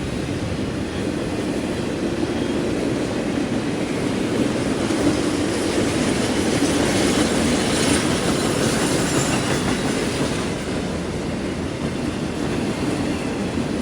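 A train passing close by on the tracks: a continuous rumble of cars rolling over the rails, growing somewhat louder through the middle.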